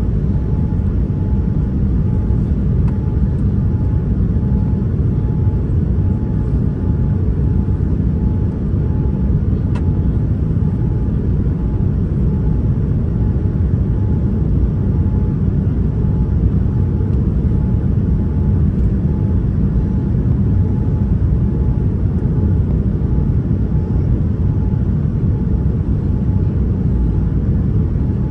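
Steady cabin noise inside a Boeing 787-9 airliner: a loud, even, low rumble of the engines and airflow.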